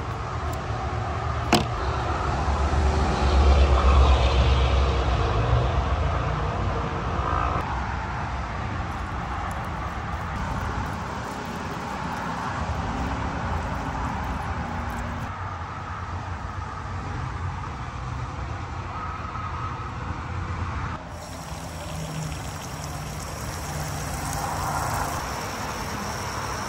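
Liquid being poured and splashing into a container, filling a soak bath to strip the rust. There is a single sharp knock about a second and a half in.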